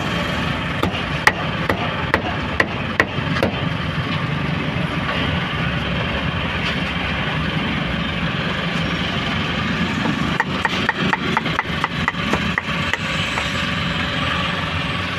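Cleaver chopping meat on a wooden board: a few scattered chops at first, then a quick run of chops about ten seconds in, over a steady background hum.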